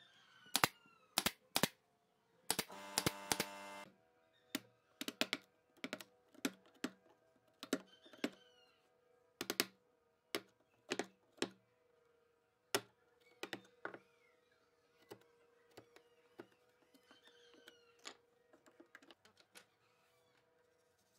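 Hand woodworking on pine strips: a long run of sharp, irregular wooden knocks and taps, with hand-chisel work in the middle. A brief machine whir about two and a half seconds in, and small birds chirping faintly in the background.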